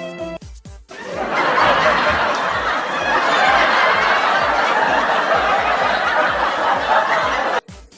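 Crowd laughing, like a sitcom audience laugh track, starting about a second in and cutting off abruptly near the end.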